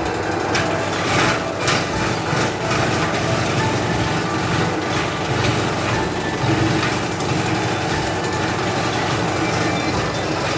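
Motorized grass chopper running steadily and shredding fresh-cut grass into goat feed, with a few sharp clatters in the first few seconds.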